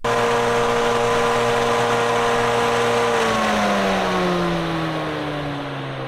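Grain bin aeration fan running, a loud electric motor hum over a rush of moving air. From about halfway its pitch slides down and it gets quieter as the fan slows.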